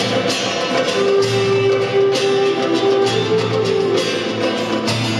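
Folk-rock band playing an instrumental passage live: strummed guitar under a rhythmic beat, with a melody line of separate, held notes.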